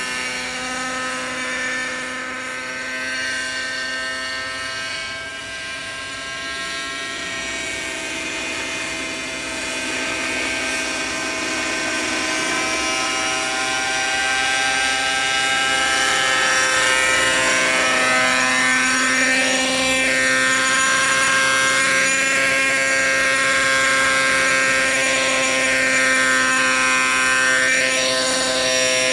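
Petrol-engined radio-controlled model helicopter in flight, its small two-stroke engine running steadily with the whir of the rotor blades. The sound grows louder over the second half, with a swishing shift in tone as the helicopter moves.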